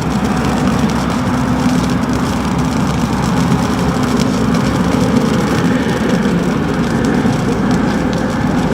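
A steady mechanical drone with a constant low hum, like a running engine or vehicle.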